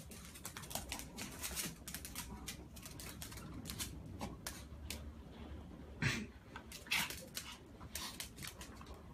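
Claws clicking and scrabbling on a tile floor as a cat and a dog wrestle, with two louder bumps about six and seven seconds in.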